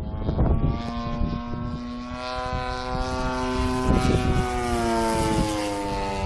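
Engine and propeller of a 35% scale Sbach radio-controlled aerobatic plane in flight: a steady drone that falls slightly in pitch near the end as the plane passes.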